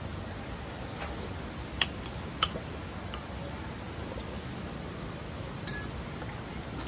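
Steady background noise with three short sharp clicks or clinks: about two seconds in, again half a second later, and once more near the end.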